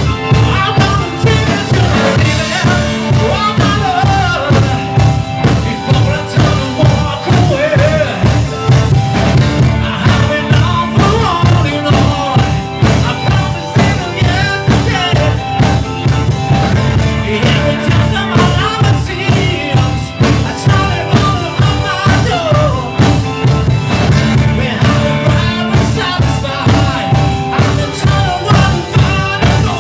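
Live rock band playing loud: a male lead singer over two electric guitars, electric bass, drum kit and keyboards, with a steady drum beat.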